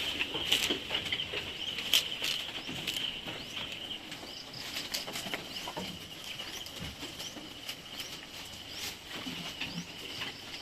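Goats moving about in a pen: scattered taps and shuffles, over a steady high-pitched drone.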